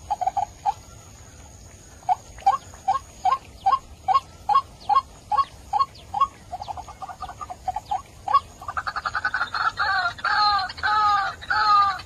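White-breasted waterhen calling: a string of short rising notes at about two to three a second, then a fast stuttering run, and from about nine seconds in loud ruak-ruak calls repeated about twice a second.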